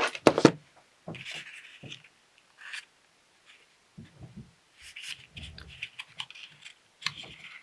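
Folded cardstock being handled and glued: intermittent rustling and scraping of paper, with a couple of sharp clicks at the start and a few soft knocks in the middle.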